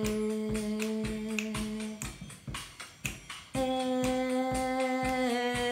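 A woman's voice holds two long, steady notes without words over rhythmic strumming on a classical guitar. The first note ends about two seconds in, and the second, slightly higher note begins a second and a half later.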